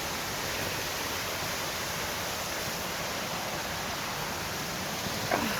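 Steady rushing of water at the foot of Browns Falls, an even hiss with no change. Near the end a short pitched call rises and falls above it.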